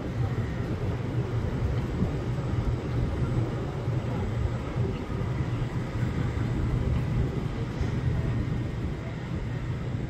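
A vehicle's engine running, a steady low rumble.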